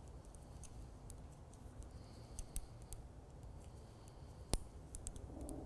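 Knitting needles clicking faintly and irregularly as stitches are worked along a row, with one sharper click about four and a half seconds in.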